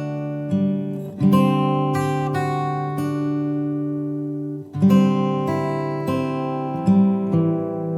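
Background music: acoustic guitar picking slow chords that ring out, with new chords about every one to two seconds.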